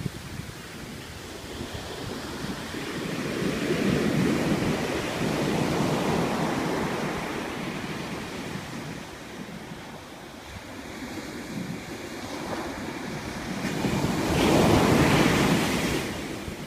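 Atlantic ocean surf breaking and washing up a sandy beach, swelling and fading in slow surges, with the loudest wave breaking about fourteen seconds in.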